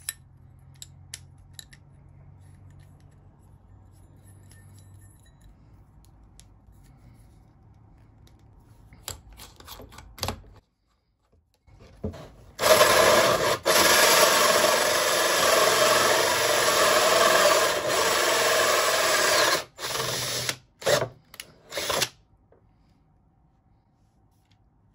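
Cordless drill turning a 2-inch hole saw through a wooden board. After some quiet clicks of the saw being fitted on its arbor and in the chuck, the saw cuts in a loud, steady run of about seven seconds, then finishes with a few short bursts of the trigger.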